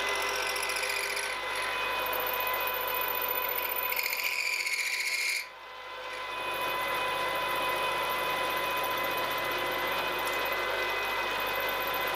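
Milling machine running with an end mill cutting a recess into aluminium: a steady spindle whine over the chatter of the cut. The sound dips briefly about five and a half seconds in, then builds back up.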